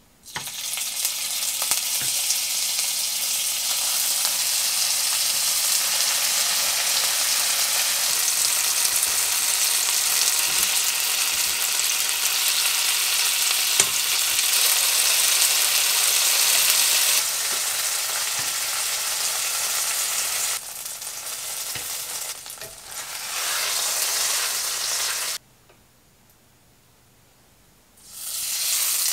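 Bacon-wrapped enoki mushroom rolls sizzling in hot oil in a frying pan, with a few light clicks. The sizzle drops out for a couple of seconds near the end, then starts again.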